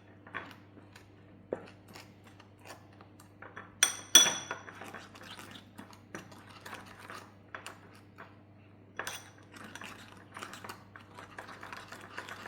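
A spoon clinking and scraping against a bowl as spices are stirred with a little water into a paste: scattered light clicks, one loud ringing clink about four seconds in, then busier scraping from about nine seconds.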